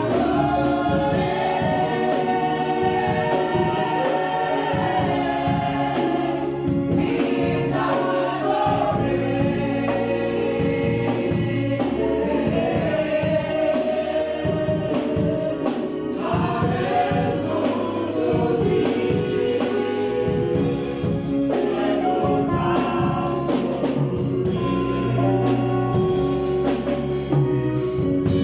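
Gospel choir singing in several voices, with a steady low beat underneath.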